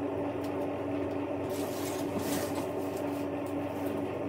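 Rustling and crackling as an orchid's bare, dry aerial roots and the paper packing around them are handled, thickest around the middle, over a steady low hum.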